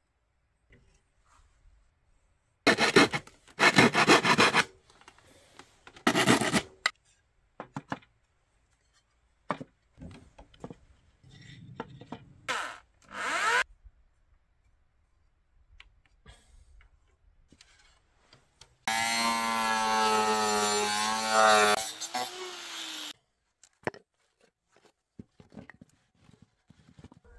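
Abrasive rubbing and rasping on wood in short bursts, the loudest about three seconds in and again about six seconds in. Later a pitched, wavering sound runs for about four seconds and stops.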